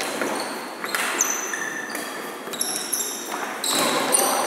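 Badminton rally: rackets striking the shuttlecock with sharp cracks, and players' shoes squeaking in short, high-pitched chirps on the wooden court floor.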